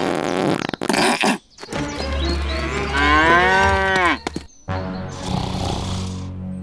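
A cow mooing: one long call that rises a little and then drops away sharply, about three seconds in, over a steady low hum.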